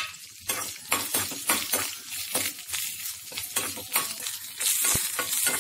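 Fennel seeds and green chillies sizzling in a spoonful of hot oil in a pan while being stirred, a crackling hiss broken by many small clicks and scrapes of the spoon. The hiss swells briefly about five seconds in.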